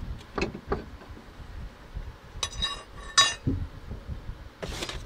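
Metal clinking and knocking as a new rear strut's lower end is pried down and slid onto its suspension bracket with a steel pry bar: a few light knocks, then two ringing metallic clinks between two and three and a half seconds in, a dull thud, and a short scrape near the end.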